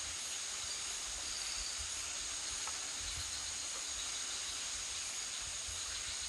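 Night forest ambience: a steady, high-pitched drone of insects over a hiss, with low gusts of wind buffeting the microphone.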